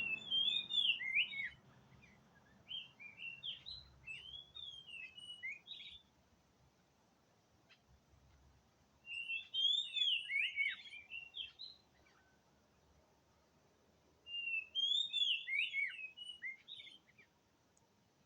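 Oriental magpie-robin (kacer) singing: four bursts of rapid, varied whistled notes that slide up and down, with pauses of a second or more between them.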